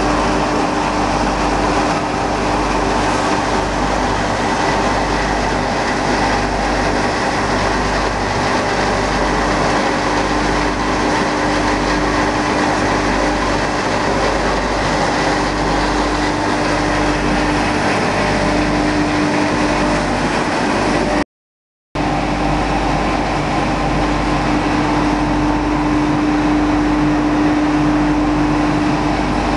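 Pellet production-line machinery running steadily, led by an electric-motor-driven hammer mill and its belt conveyors: a loud, even mechanical noise with a steady hum. The sound cuts out for about half a second a little past two-thirds of the way through.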